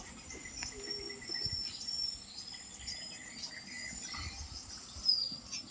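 Steady, high-pitched drone of insects such as crickets or cicadas, with short high chirps scattered through it.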